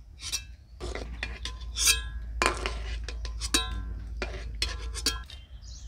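Perforated metal ladle clinking and scraping against a metal kadai while boiled potatoes are scooped out of the hot water, in a quick run of short clinks.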